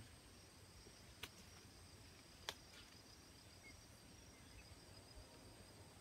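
Faint, steady high insect trilling from the surrounding vegetation, with two sharp clicks about one and two and a half seconds in.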